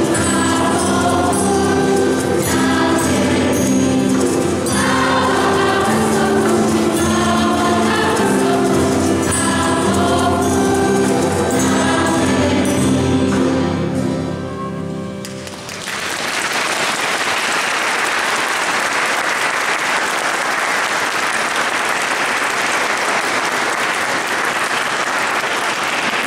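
A family church choir singing a Polish Christmas carol, the song ending about fourteen seconds in. Audience applause follows and keeps going steadily.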